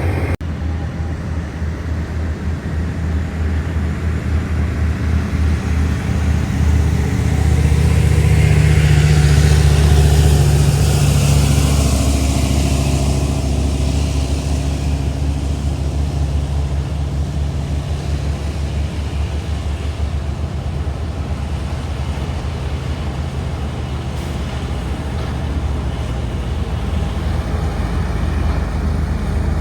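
Komatsu D275AX bulldozer's diesel engine running steadily under load. It grows louder about a quarter of the way in, with a rushing sound that rises and then falls in pitch as the machine comes nearest, then eases back.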